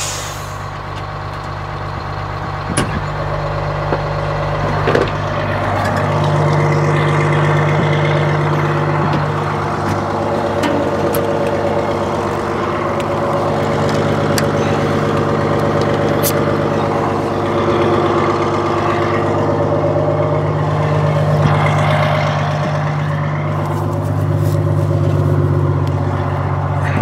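Detroit Diesel two-stroke engine of a White 4000 truck idling steadily, with a few sharp clicks over it.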